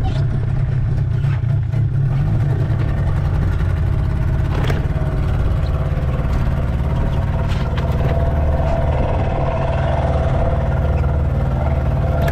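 A motorboat's engine running steadily, with a few short knocks, the clearest about four and a half seconds in.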